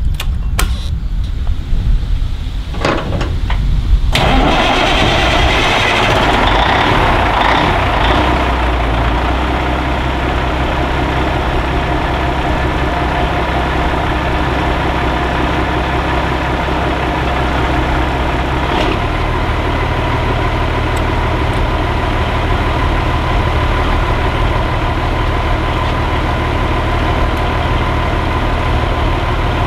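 Cabover semi truck's diesel engine starting: it catches about four seconds in, runs up briefly, then settles into a steady idle. The low idle note shifts about two-thirds of the way through.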